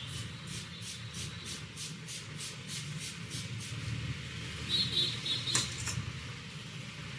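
Hands working over hair and scalp in a head massage, brisk rhythmic strokes about three a second that stop about halfway through. A couple of short high chirps and one sharp click follow, over a steady low background rumble.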